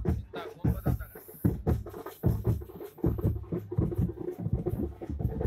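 Drums beating a fast, driving rhythm, several strikes a second.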